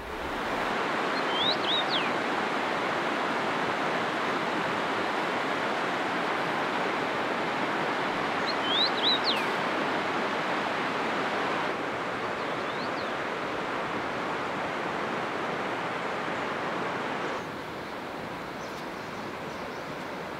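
Steady rushing of a mountain river, with a bird chirping briefly three times, the last time fainter. The rushing steps down in level twice, about two-thirds of the way through and again near the end.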